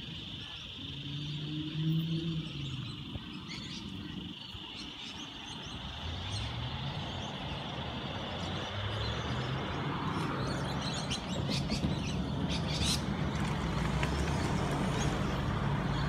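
Motor vehicle engine rumble growing louder from about six seconds in, after a passing engine note early on, with birds chirping over a steady high-pitched drone.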